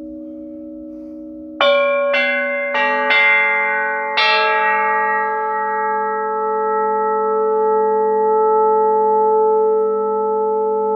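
Tuned metal bells struck five times in quick succession, about one and a half seconds in, each note ringing on so they pile up into a long sustained bell chord. Before the strikes a steady ringing tone carries on from earlier.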